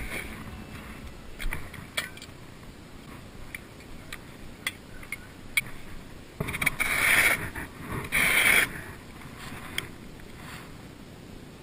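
Clicks and metal rattles of a small gas-canister camping stove being handled and fitted together, with two louder noisy bursts of about a second each, roughly six and eight seconds in.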